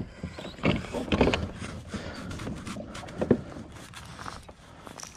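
Irregular light knocks, clicks and scrapes from handling a caught bass and unhooking a hard jerkbait on a kayak, over a steady background hiss.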